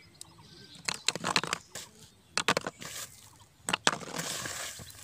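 Thin plastic drink bottles crackling and clicking as they are handled, in three short bursts, followed near the end by a grainy rustle of dry bait being touched in a plastic basin.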